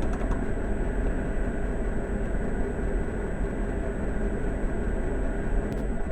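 A cat snoring, a steady low rumble.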